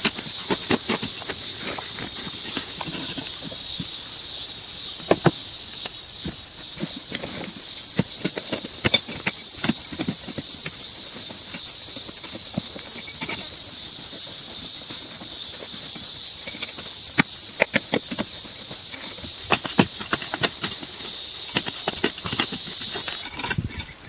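A steady high hiss with many scattered clicks and knocks. The hiss steps louder about seven seconds in, shifts again about nineteen seconds in, and drops away just before the end.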